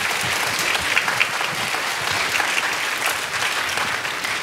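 A large audience applauding steadily, many people clapping at once.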